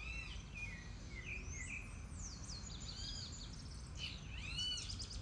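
Birds singing outdoors, a run of quick arched chirps and short trills repeating throughout, over a steady low rumble.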